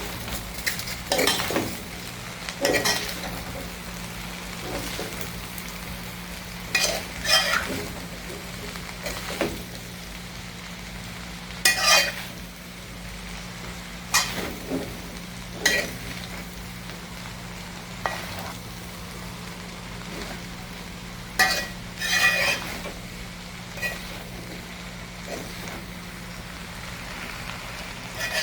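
Chicken chow mein being stirred and tossed in a hot pot over a low sizzle, a cooking utensil scraping and clattering against the pot at irregular intervals. A steady low hum runs underneath.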